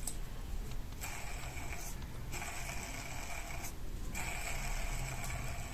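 Worn bearing in a split air conditioner's indoor-unit fan motor giving a rough, noisy sound as the motor shaft turns, in three spells of about a second and a half each; the bearing has gone bad.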